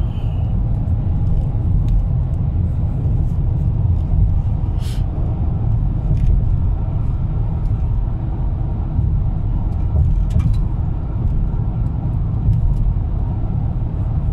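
Car driving at highway speed, heard inside the cabin: a steady low rumble of tyre and engine noise, with a few faint ticks.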